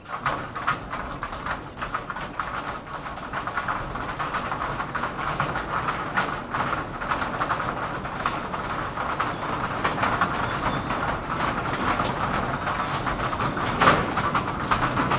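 Hooves of a small herd of horses and men's boots clattering on the deck of an old steel railway bridge as the horses are led across at a walk, a dense run of knocking strikes that slowly grows louder as they come closer.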